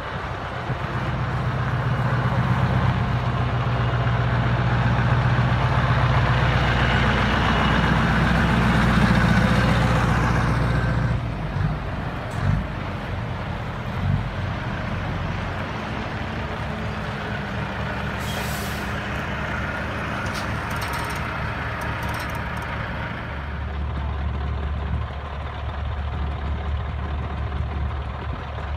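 Scania V8 tractor unit engine running loud as the truck pulls past, dropping away about 11 seconds in. A few knocks and a short air-brake hiss follow as the next trucks roll by. Near the end a low steady drone comes in from a Scania 144L 530's V8 engine as it approaches.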